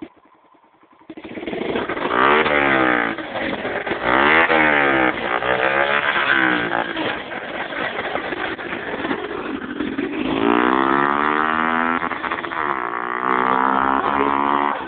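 Suzuki Yes 125 motorcycle's single-cylinder engine, breathing through an aftermarket Roncar exhaust, revved repeatedly. The pitch climbs and drops several times, then is held at higher revs for a longer stretch near the end.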